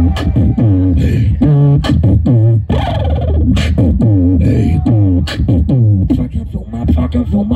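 A beatboxer performing into a handheld microphone: a steady beat of vocal kick and snare hits, with deep pitched bass notes sliding up and down in pitch between them.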